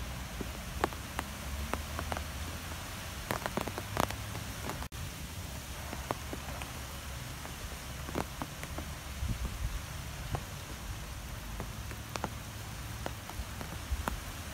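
Steady rain falling, with scattered close drops ticking and a low rumble underneath.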